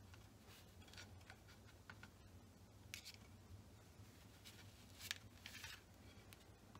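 Near silence with faint small clicks and rustles from hands tying a square knot in waxed artificial sinew wrapped on a wooden dowel.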